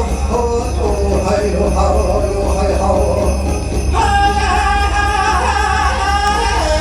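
Music: several melodic lines over a steady low bass, with a fuller set of held notes coming in about four seconds in.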